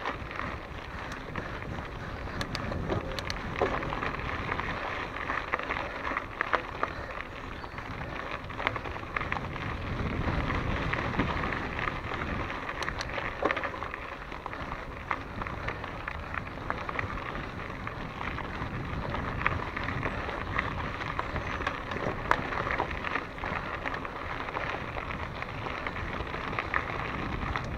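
Mountain bike rolling along a dirt singletrack: tyre noise on the dirt with a steady stream of small rattles and clicks from the bike over bumps.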